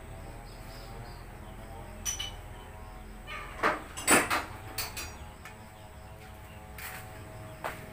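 Several sharp metallic clinks and taps of tools and parts, spread irregularly, the loudest a little past the middle, over a faint steady low hum.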